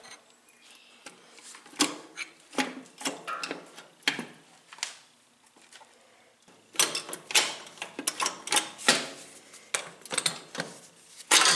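Irregular metal clicks and taps of steel tools and parts on a tractor transmission's shift housing, as a bar works a jammed shift rod back into place and the shift cover is handled. The clicks come thicker in the second half.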